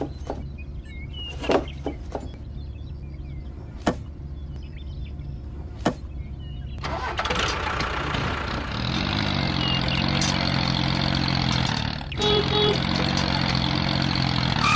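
A few light clicks over a low hum, then a tractor engine starting up about seven seconds in. Its pitch rises, then it runs steadily, with a brief drop near twelve seconds.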